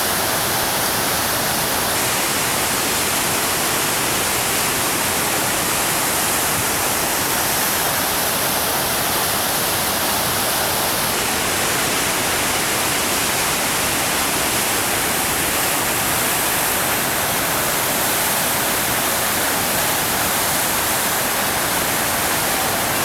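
Whitewater rapids at high water: a loud, steady rush of falling and churning water with no breaks.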